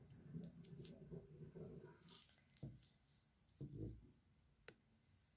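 Near silence: faint room tone with two soft low thumps in the middle and a faint click near the end.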